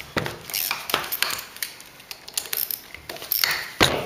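Metal clinks and knocks as the gearbox case and loosened parts are handled while the housing is being opened, with one loud knock near the end.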